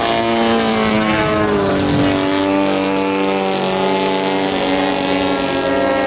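Giant-scale RC Pitts Model 12 biplane in flight, its 150cc two-stroke gas engine and propeller running. The engine pitch drops about a second in and again near two seconds, then holds steady.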